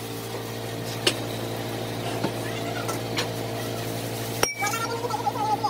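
A few sharp metal clinks as a brass impeller pattern and metal mold plates are handled and set down, over a steady background hum.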